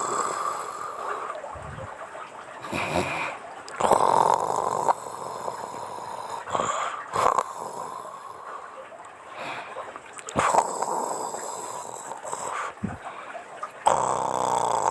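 A woman snoring in her sleep: a run of snores that come every few seconds at an uneven pace.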